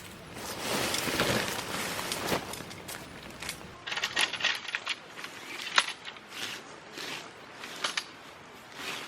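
Rustling, then a run of light metallic clinks and clicks from camping gear being handled.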